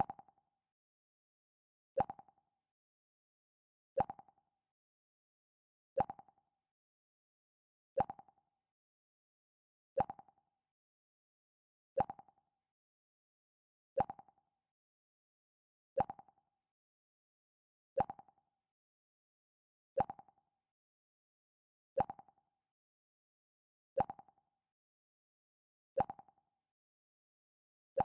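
Mac OS X 'Pluck' system sound effect: a short plucked tone that dies away within half a second, repeated about every two seconds with silence in between.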